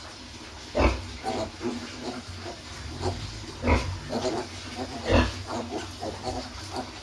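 Pigs grunting, a string of short calls with three louder ones about a second, three and a half seconds and five seconds in.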